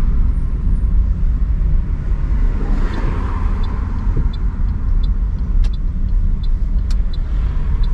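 A car passing on a wet street, its tyre hiss swelling and fading about three seconds in, over a steady low rumble. Light ticks are scattered through the second half.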